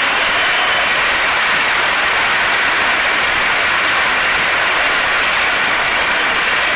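Large convention crowd applauding and cheering, a steady dense roar of clapping with no break.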